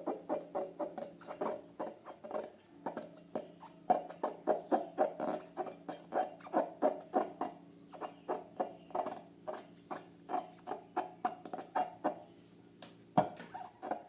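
Rubber party balloons squeaking as they are handled and rubbed: a quick, uneven run of short squeaks, about three or four a second, with a sharp click about thirteen seconds in.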